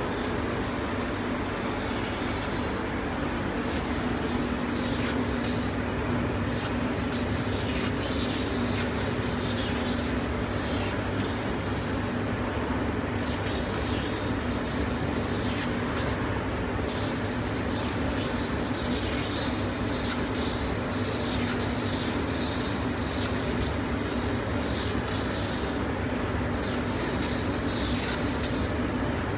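Golden Laser FlyCut vision laser cutting machine running as its head traces cuts in printed fabric: a steady machine hum with a constant low tone.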